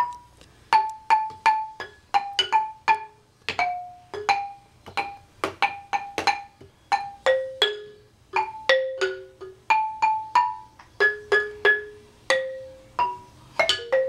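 Small wooden xylophone struck with mallets by two players: single notes at an irregular pace of about two or three a second, each ringing briefly and jumping among a handful of pitches.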